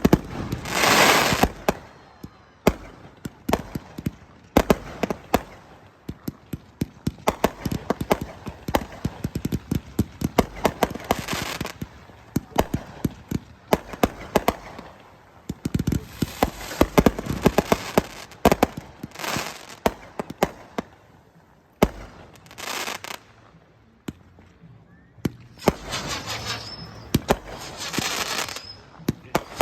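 Fireworks going off continuously: many sharp bangs and reports, with several bursts of crackling that last a second or so each.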